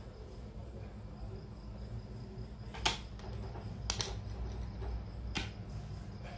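A few sharp clicks and taps as small plastic and metal parts of a Traxxas TRX-4 RC crawler's front portal axle are handled and the portal hub is worked loose by hand, over a steady low hum.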